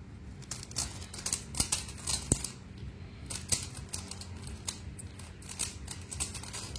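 A Rubik's Cube being turned by hand: a quick, irregular run of plastic clicks and clacks as its layers are twisted.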